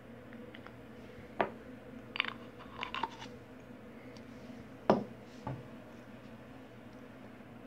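Small hard objects being handled: a few sharp clicks and knocks, some in quick little clusters, the loudest about five seconds in, over a steady low hum.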